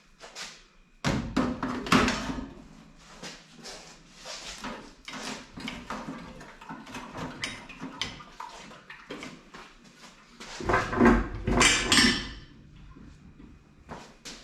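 Metal clanks, knocks and scraping as the engine and transmission hanging from an engine hoist are worked free while hung up under tension, the transmission's extension housing caught on the crossmember. The clanking comes in two louder bursts, about a second in and again around eleven seconds.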